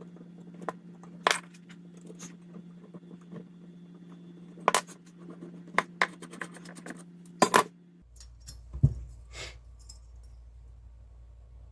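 Sharp metallic clinks and clatters of tools and small metal parts being handled, with the loudest about a second in, near five seconds and twice around seven and a half seconds. Under them is a steady low hum that cuts off abruptly about eight seconds in.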